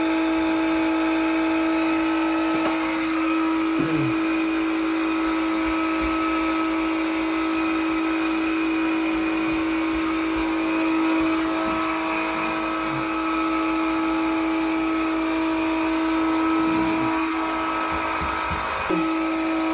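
A small electric motor running steadily with a constant whine, with no change in speed.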